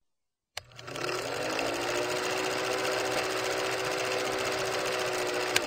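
Film projector sound effect: a fast, even mechanical clatter with a motor hum that rises slightly as it comes up to speed, starting with a click and with a sharp click near the end.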